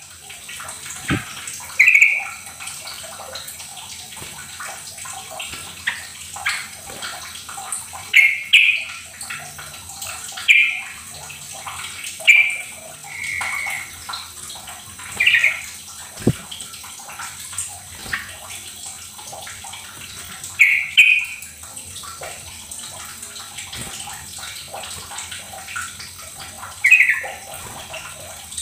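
Yellow-vented bulbul (trucukan) calling: about eight short, clear notes at irregular intervals, over a constant trickling, water-like noise.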